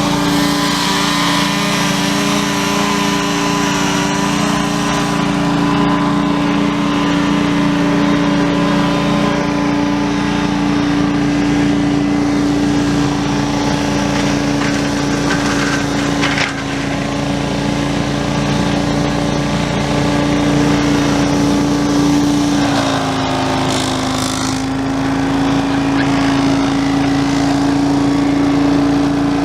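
Small gasoline engine of a chipper shredder running steadily under load as brush is fed through it. There is a brief dip about halfway, and the pitch drops slightly about two-thirds of the way through.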